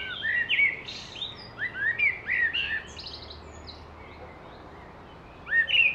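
Birds chirping: a quick string of short, rising-and-falling chirps for about three seconds, a quieter lull, then more chirps near the end.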